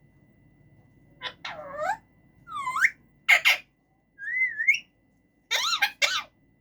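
Male Alexandrine parakeet whistling and calling in a string of short calls that glide and waver in pitch. Loud, sharp calls come in the middle and a harsher squawk near the end.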